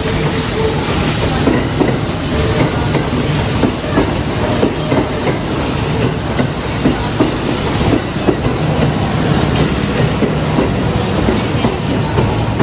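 Six-car Kintetsu electric train (1233 series coupled to 8600 series) rolling along a station platform, its wheels clacking over the rail joints in a steady run of clicks under an even rumble with a faint steady hum.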